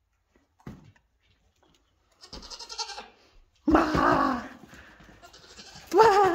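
Goats bleating: a loud wavering bleat about four seconds in and another near the end, after a brief knock and some rustling.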